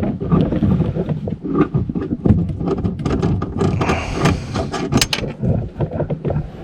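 Irregular clicks, knocks and rattles of hands and tools working on a car's tail light assembly, over a steady low rumble, with a cluster of sharper clicks around the middle.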